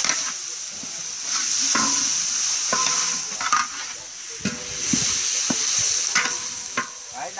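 Yellow spice paste sizzling steadily in hot oil in a large metal wok, while a metal spatula scrapes and stirs it across the wok's surface in repeated strokes, some with a brief metallic ring.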